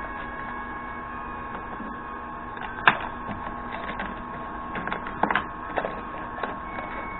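Small steel tools clinking as they are handled and moved around in a machinist's toolbox drawer: one sharp click about three seconds in and a few lighter clinks around five seconds, over a steady hum.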